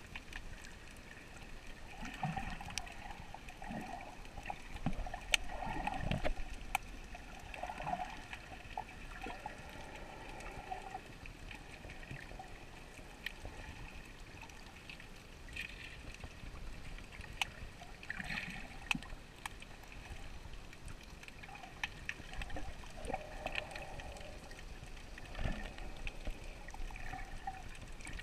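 Underwater water movement heard through a GoPro's waterproof housing as a snorkeler swims: a steady gurgling wash with scattered sharp clicks and a few louder swells.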